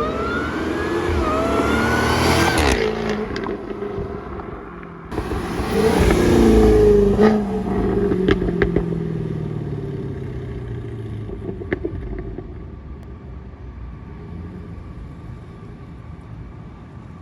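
Jaguar F-Type R's supercharged 5.0 V8 pulling hard with a rising supercharger whine, then a second full-throttle pull about five seconds in. The revs then fall away with sharp pops and crackles from the exhaust on the overrun, before the engine settles to a quieter steady run.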